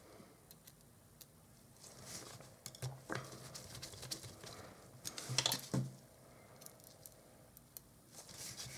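Small screwdriver driving the tiny screws of a camera lens's focusing ring: faint, scattered clicks and scrapes of the tool on the screws, with a few louder clicks about three seconds in and again around five to six seconds in.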